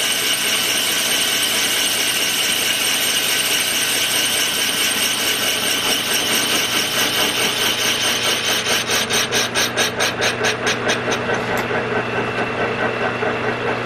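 Metal lathe cutting a live steam locomotive wheel, the tool scraping steadily with a brush held against the spinning work. Late on the cutting sound pulses about six times a second, then the high cutting noise drops away, leaving the lathe running.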